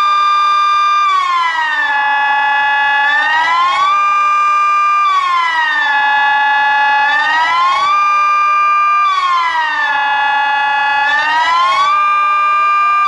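Civil-defence siren sounding the Swiss general alarm during its annual test: a loud, many-toned wail that rises to a high pitch, holds for about a second, falls to a low pitch and holds again, repeating about every four seconds.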